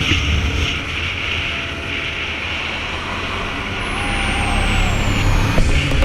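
Vehicle driving, a steady low rumble with a hissy wash of road and wind noise over it.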